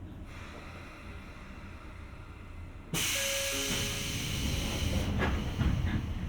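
Inside a Sotetsu 8000 series electric train at a station stop: a low rumble, then about three seconds in a sudden loud burst of compressed-air hiss from the train's pneumatic equipment, with a few knocks after it.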